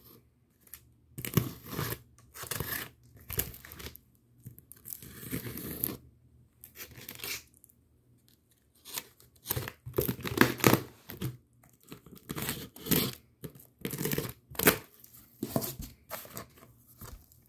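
Packaging being torn open and handled by hand: a series of irregular tearing and crinkling bursts with short pauses between them.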